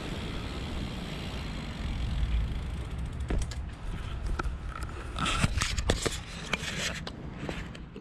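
Riding a BMX bike over paving stones: a steady low wind and rolling rumble, then from about three seconds in a run of irregular sharp clicks and scrapes as the bike slows.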